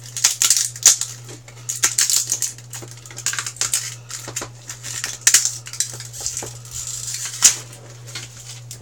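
Plastic case of a laptop battery pack being pried apart by hand: a dense run of sharp clicks, snaps and crackles as the snap-fit seams give way and the shell is worked off the 18650 cells.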